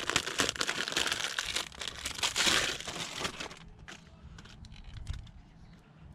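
Packaging crinkling as a new door latch assembly is handled, dense for about three and a half seconds, then only a few light clicks and taps.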